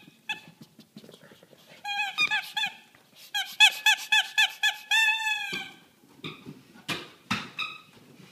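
Squeaky dog toy squeezed over and over in a hand: runs of quick squeaks, about four or five a second, ending in one longer squeak. Near the end come two sharp knocks as the toy is thrown down the carpeted stairs.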